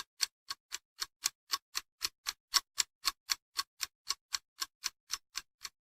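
Clock ticking sound effect: even, sharp ticks about four a second over total silence, stopping shortly before the end.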